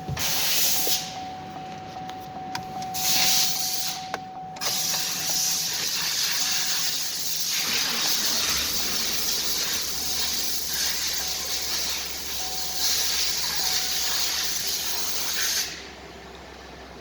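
A loud spraying hiss, broken by a couple of short pauses early on, with a steady low hum joining about halfway through.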